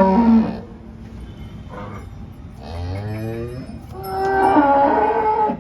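Cows mooing, three calls. One tails off just after the start, a shorter call rises in pitch about three seconds in, and a loud, long moo runs from about four seconds in until shortly before the end.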